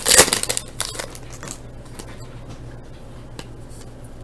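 Trading-card pack wrapper crinkling briefly at the start as the pack is opened, then faint light rustles and clicks of cards being handled and slid apart.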